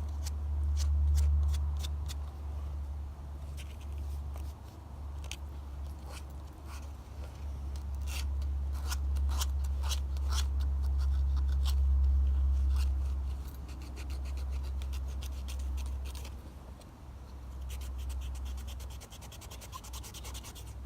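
Sandpaper rubbed by hand in repeated scratchy strokes on an old sickle, with a steady low rumble underneath.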